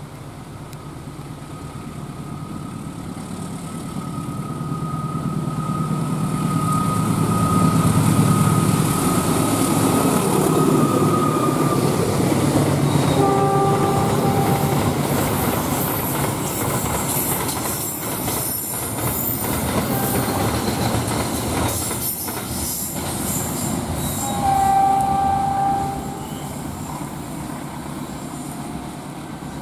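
Freight train passing. Its diesel locomotive's low rumble builds to a peak about eight seconds in. The wagons roll by with rattling wheel clatter, a steady high whine and brief high-pitched tones, the loudest of them about 25 seconds in.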